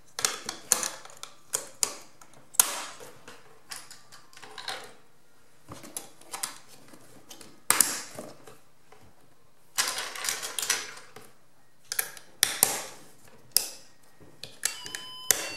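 Plastic Snap Circuits parts being pressed and snapped onto the clear pegged base grid: irregular clicks, snaps and knocks. Near the end the kit's music IC starts playing a thin electronic tune of single beeping notes through its small speaker.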